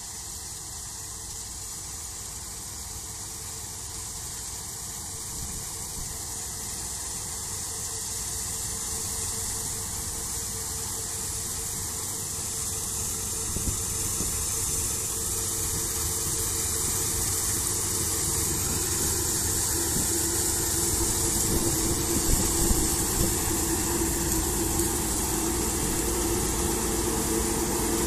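Claas Lexion combine harvester working through a standing crop, its engine and threshing machinery running steadily and growing louder as it draws near, passing close by near the end.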